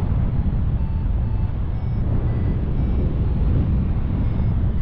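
Strong wind buffeting the microphone in flight under a paraglider: a steady, rumbling low rush of air.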